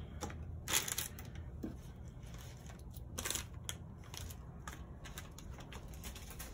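Nylon webbing luggage straps with plastic buckles being handled and set down on a cloth: a few short rustling swishes, the loudest about a second in and another about three seconds in, with small plastic ticks.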